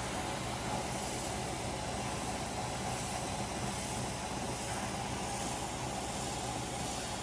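Spindle sander running steadily, its motor humming under a continuous hiss as the sanding drum shapes the wooden hub of a propeller pressed against it.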